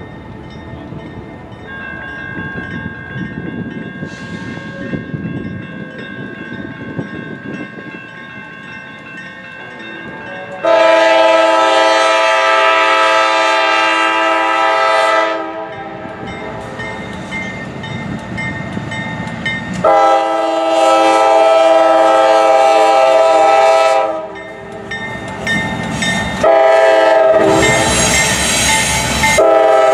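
Norfolk Southern diesel freight locomotives passing at close range, engines rumbling, then sounding the multi-chime air horn. There are two long blasts about ten and twenty seconds in, a short blast, and a final long one starting near the end, which is the crossing-signal pattern.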